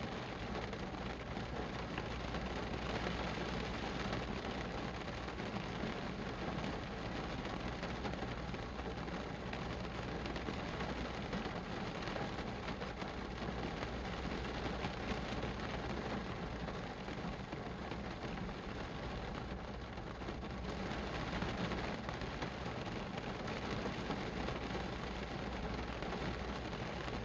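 Steady rain falling, a dense patter of drops with a low steady rumble underneath.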